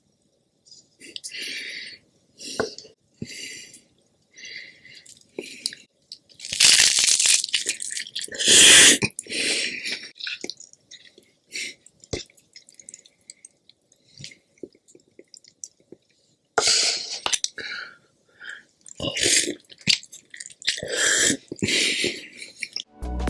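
Close-miked eating: crunchy bites and chewing come in separate bursts with short gaps between them. The loudest crunches fall about seven to nine seconds in.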